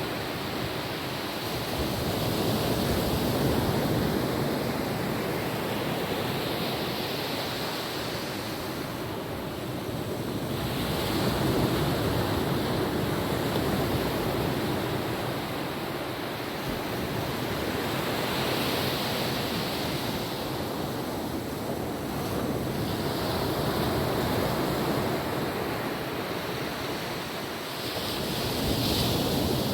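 Gentle ocean waves breaking and washing on a beach, the surf rising and falling in slow swells every few seconds, with some wind on the microphone.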